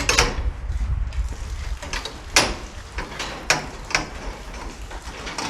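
Irregular sharp knocks and clatters, several seconds apart, over a low rumble.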